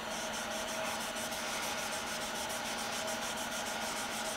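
Stain-soaked cotton rag rubbed over a sanded bare-wood cylinder: a soft scrubbing in quick, even strokes, about five a second.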